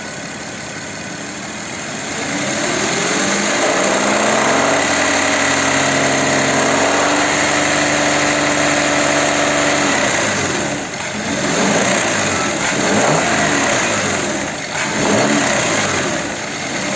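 Audi Q7's 3.6 FSI VR6 engine slowly revved up to about 3,000 rpm, held there steadily for several seconds, then let back down about ten seconds in, followed by a few short throttle blips. The engine is being run up to check for timing-chain rattle after the chain work.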